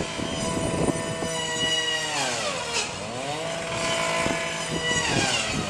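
Two-stroke chainsaw running at high revs, its pitch dipping smoothly about halfway through and climbing back up.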